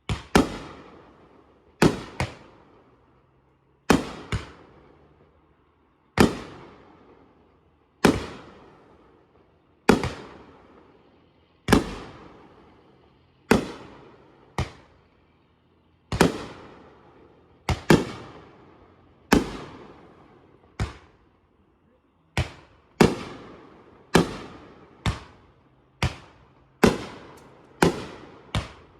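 Fireworks going off: a steady series of sharp bangs, roughly one every second or two and sometimes in quick pairs, each trailing off in echo.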